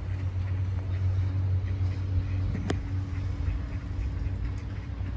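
Ducks quacking over a steady low rumble of cars, with one sharp click near the middle.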